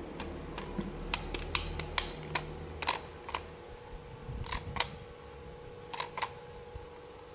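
Sharp plastic clicks and snaps from toy pieces and packaging being handled, about a dozen at uneven intervals, thickest in the first three seconds, over a faint steady hum.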